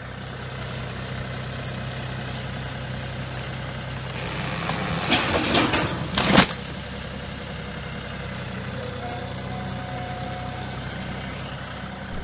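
A John Deere utility tractor's diesel engine runs steadily while its loader pushes on a dead tree snag. About four and a half seconds in, the trunk cracks and splinters and then comes down with a sharp crash just after six seconds, the loudest sound in the clip. The engine keeps running afterwards.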